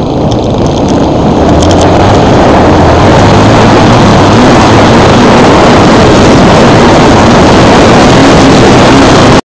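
Off-road motorcycle engine running, loud and distorted, with a steady low hum under a heavy rasp. It grows louder over the first few seconds and cuts off abruptly near the end.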